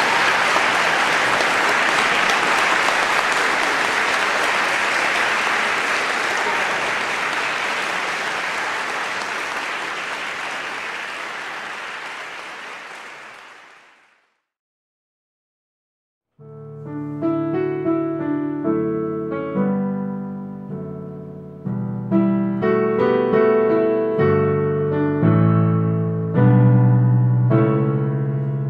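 Audience applauding, fading out about halfway through. After a couple of seconds of silence, piano music starts, its notes struck and left to ring.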